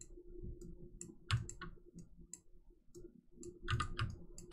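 Scattered clicks of a computer mouse as pattern pieces are selected and dragged in 3D garment software.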